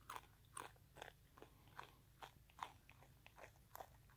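Wallaby chewing and crunching corn taken from a hand: faint crisp crunches about two a second.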